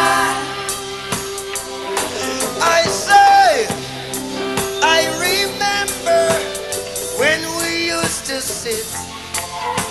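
Live reggae band music: a drum kit keeping a steady beat under held chords and a bending melody line.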